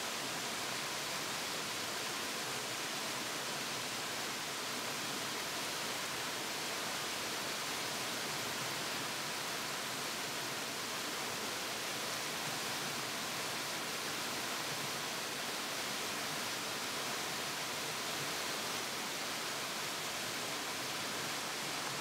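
Waterfall and a rocky stream rushing steadily, water pouring and cascading over boulders as one even hiss that does not change.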